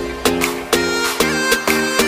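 Instrumental background music: a melody of held, pitched notes that change about twice a second, each new note starting sharply.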